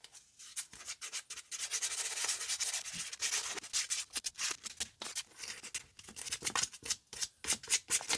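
Fine-grit sandpaper rubbing over black shoe leather in short back-and-forth strokes, smoothing down raised fibres on the scuffed surface of a Dr. Martens oxford.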